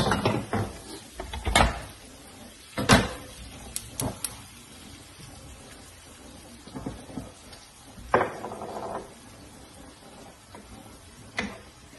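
Kitchen handling noises: a scattering of sharp knocks and clatters from pans and a wooden spoon on a gas stove, along with a cupboard door opening and closing.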